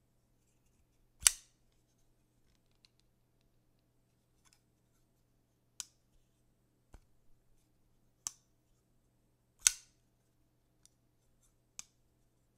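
Sharp metallic clicks of a Twosun TS367 titanium frame-lock folding knife as its blade is snapped open and shut and the lock engages. There are a handful of clicks a few seconds apart, with the loudest about a second in and just before ten seconds.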